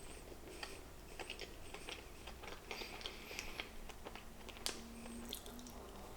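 Close-up eating sounds: someone biting into and chewing a strawberry-filled snack cake, with many small wet clicks and ticks. A short denser patch of crackly noise comes about three seconds in.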